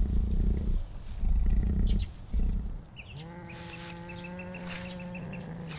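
Wild cat growling: three bouts of low, rough rumbling, then one long, steady-pitched moaning call about halfway through.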